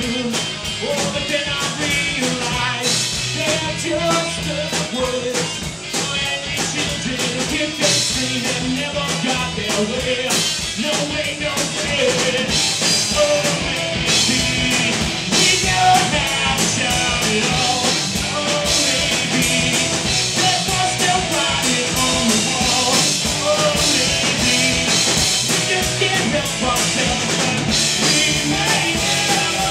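Live rock band playing loud and steady: drum kit, amplified instruments and singing.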